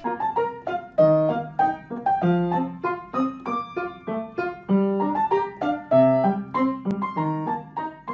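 Piano music: a quick tune of separate struck notes over bass notes, each note ringing and fading.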